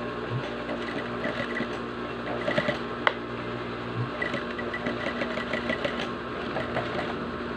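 Industrial sewing machine stitching an elastic band onto a sheet of bottle plastic. It runs in short spurts of rapid even stitching, with pauses, over a steady hum.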